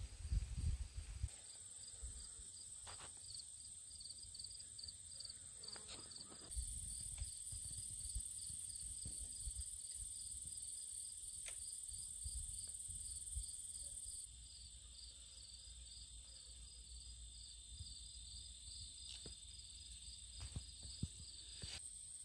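Insects chirping outdoors: a steady high trill with a regular, quicker chirp repeating a few times a second. Under it runs a low rumble, louder in the middle stretch, and a few faint clicks.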